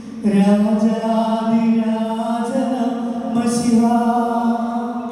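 A man singing alone into a microphone without accompaniment, in long held, chant-like notes that shift pitch now and then.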